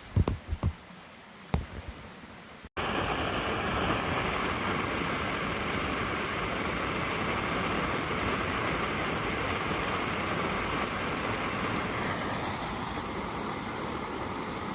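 A few light knocks, then the burner of an antique Coleman camp stove running with a steady rushing noise, lit to heat morning coffee.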